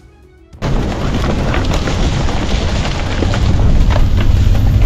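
A herd of bison running past, a loud rumble of many hooves that starts suddenly about half a second in and grows louder, with a few sharper knocks.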